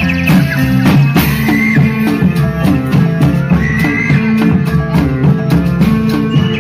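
Indonesian reog folk dance music: steady drumming and rattling percussion under a repeating low melody. A higher melodic line comes in briefly about a second and a half in and again about four seconds in.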